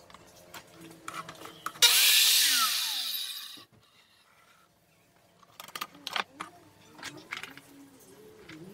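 A circular saw's motor starts about two seconds in with a loud whir and hiss, then spins down over about a second and a half, its pitch falling. Light knocks and scrapes of the saw and sled being handled come before it and again near the end.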